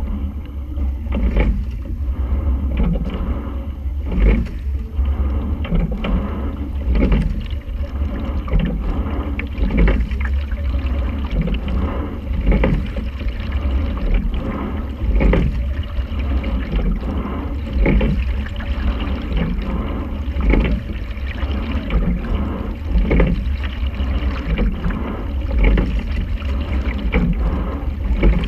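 Quad sculling shell under way: a steady low rumble with water running along the hull, and a knock from the oars and oarlocks about every two and a half to three seconds, once per stroke.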